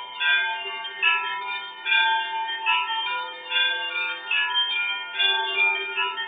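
Orthodox monastery church bells ringing: several bells struck in turn about once a second, their tones overlapping and ringing on, as a funeral ringing.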